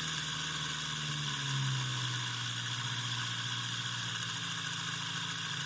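Homemade brushed DC motor spinning fast with a vibrating hum and a hissing whir above it. The vibration comes from the rotor being out of balance on a bent shaft. The hum drops a little in pitch about a second and a half in as the supply voltage is turned down.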